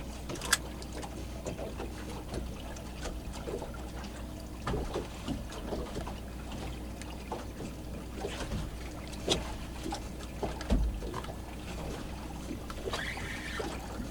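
Fishing boat on the water: water slapping the hull over a low steady rumble, with scattered knocks and clatter of gear on the deck, the loudest about half a second in and near the two-thirds mark.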